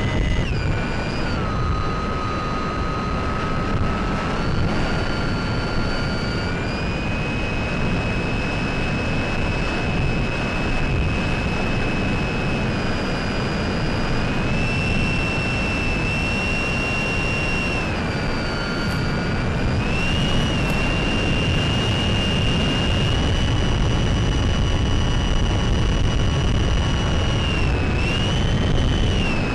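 A small electric FPV plane's Sunnysky 1240kv brushless motor and 8x6 propeller in flight: a steady rush of noise with a high motor whine that steps up and down in pitch several times as the throttle changes.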